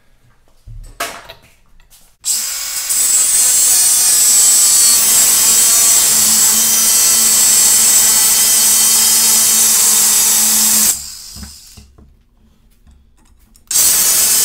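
Craftsman cordless angle grinder with a cut-off wheel cutting through the steel outer ring of a seized freewheel on a dirt-bike rear hub. A few light knocks come about a second in, then a long steady cut that stops about eleven seconds in and starts again near the end.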